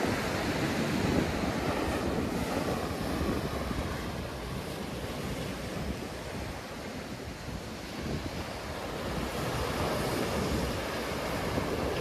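Big sea waves breaking and washing up the shore in a steady rush, loudest at the start, easing in the middle and building again near the end, with wind buffeting the microphone.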